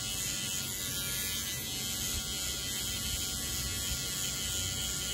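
Electric hair trimmer buzzing steadily as it cuts a line along the hair around the ear.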